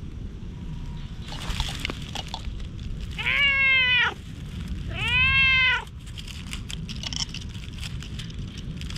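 Brown tabby-and-white cat meowing twice, two loud drawn-out meows each just under a second long, rising then falling in pitch, about a second apart.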